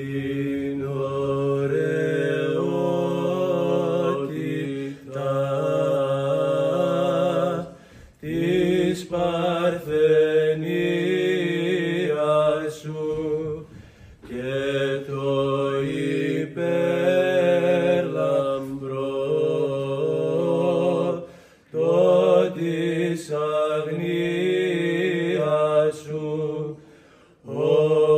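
Male chanting of an Orthodox liturgical hymn, sung from a text in long held phrases with short breaks between them.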